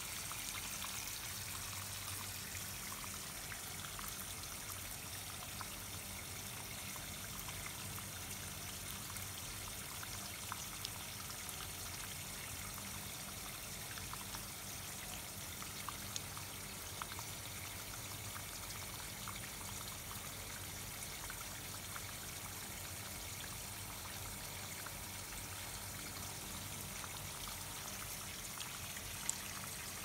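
Water trickling and dripping over wet pebbles: a steady, even trickle with a few small drip ticks scattered through it, one sharper tick near the end.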